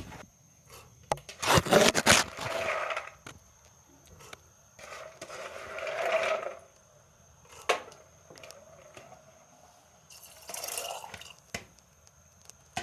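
Scraping and rustling in three short stretches, with a few sharp knocks between them: soaked meat pieces being handled and put into a pressure cooker pot.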